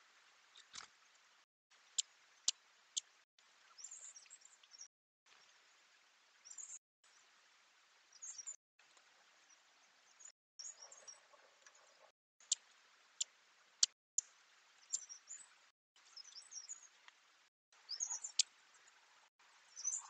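Trail-camera microphone hiss broken by short silences where clips are joined, with high, quick bird chirps and a few sharp clicks scattered through it.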